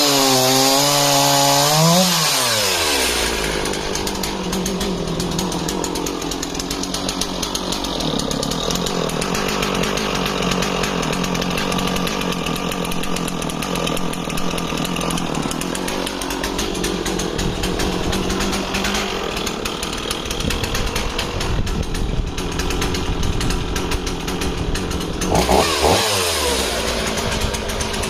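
Stihl 044 two-stroke chainsaw running at full throttle and cutting through a thick log. The revs drop sharply about two seconds in as the chain bites, then hold under load through a long cut, and near the end the saw runs freer again with the revs swinging down and up.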